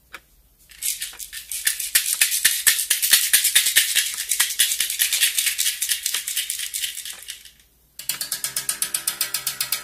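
A hand shaker rattling in quick, even shakes for about seven seconds, then fading out. About eight seconds in, a new part starts: a fast ticking rhythm over held pitched tones.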